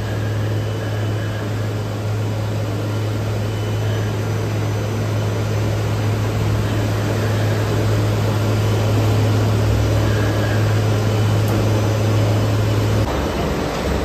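Continuous carbonization plant running: a steady mechanical din of electric motors, blowers and the rotating furnace drums, under a deep steady hum that cuts off about a second before the end.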